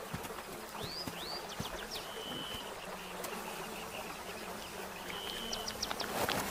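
Flies buzzing steadily around a rotting hippo carcass. A bird calls twice over it: first two quick rising notes, then a short level whistle.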